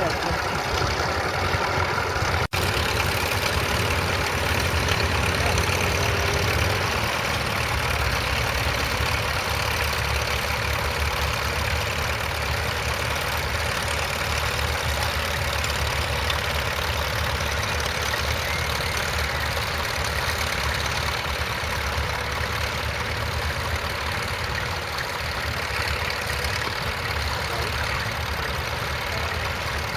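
Vintage crawler tractor's engine running steadily at a ploughing match, with a momentary break in the sound about two and a half seconds in.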